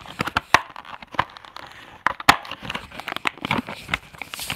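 Plastic blister packaging of a die-cast toy car crinkling and crackling as it is handled, a dense run of sharp clicks and crackles.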